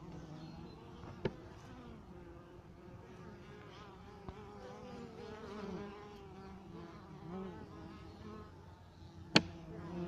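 Honeybees buzzing as they fly close past, the pitch wavering up and down as each one comes and goes. A sharp tap sounds about a second in, and a louder one near the end.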